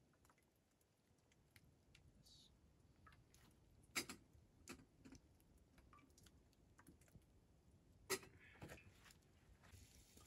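Near silence broken by scattered faint clicks, with two sharper clicks about four and eight seconds in.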